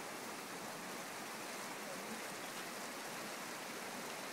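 Steady rush of river water flowing through open channels between the shelf ice of a partly frozen mountain river.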